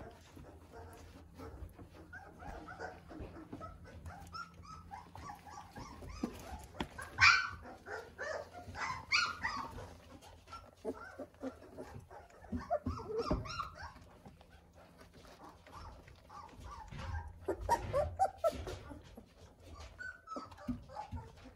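18-day-old Weimaraner puppies giving short, high-pitched yelps, whines and small barks in scattered bursts. The loudest yelp comes about seven seconds in, with more clusters later on.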